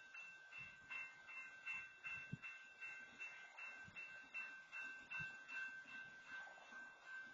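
Faint railroad crossing warning bell ringing steadily, about three dings a second, while a stopped freight train blocks the crossing.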